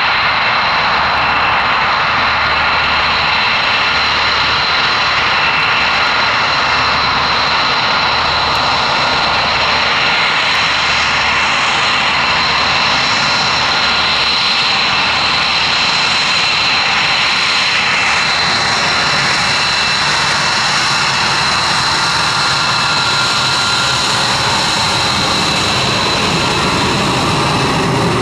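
Aircraft engine running loud and steady: a rushing roar with a high, steady whine held over it.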